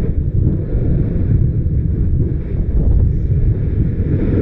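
Yasur volcano's vent rumbling low and steadily, mixed with wind buffeting the microphone.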